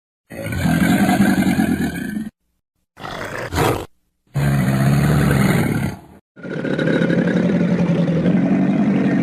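Four animal roars in a row, separated by short gaps. Each one starts and stops abruptly, like edited sound effects, and the last is the longest.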